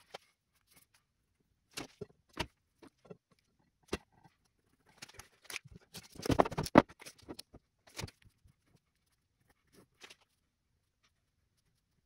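Scattered taps and clicks of tools handled on a workbench, with a busier run of clicks and scrapes around the middle as a steel tape measure is pulled out and laid along a metal rod. It falls quiet near the end.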